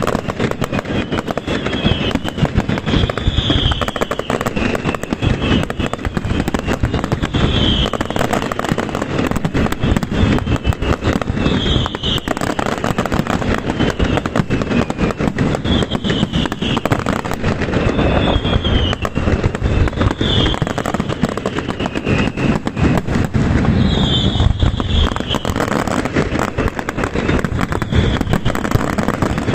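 Aerial fireworks display, a castillo: a dense, unbroken barrage of bangs and crackling explosions, with short high-pitched sounds every few seconds over the top.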